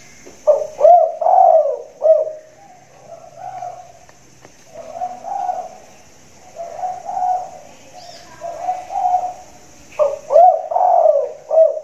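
Big-voiced spotted dove cooing. A loud phrase of rising-and-falling coos comes about half a second in and another near the end, with softer coos repeating in between.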